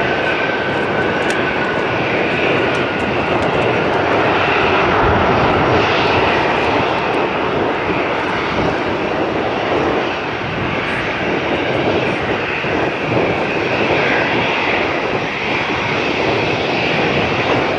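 Boeing 737-800's CFM56-7B turbofan engines running loudly at high power as the airliner moves away down the runway, a steady rushing noise with a faint whine that dips slightly in pitch at the start.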